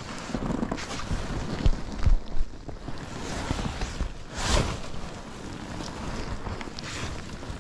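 Water splashing and dripping as a landing net holding a freshly caught pike is lifted onto an inflatable boat's tube. Knocks and rustling from the handling come with it, a louder burst about four and a half seconds in, and wind on the microphone throughout.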